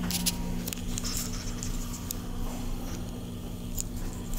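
Hydraulic passenger elevator's pump motor humming steadily as the car rides up, with a few faint clicks.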